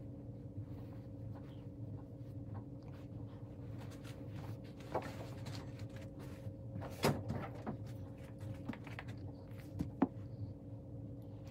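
A few knocks and clatters from a closet door and things being handled in it, the loudest about seven seconds in and a sharp one near the end, over a steady low hum.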